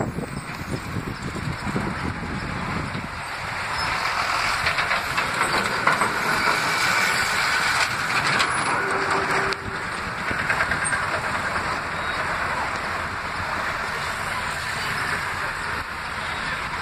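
Road traffic heard from inside a moving vehicle: steady engine and road noise with rattling, growing louder from about three seconds in as a truck passes close alongside, then easing off.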